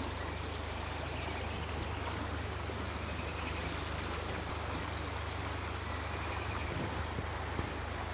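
Steady outdoor background noise with a heavy low rumble and an even hiss, no distinct events.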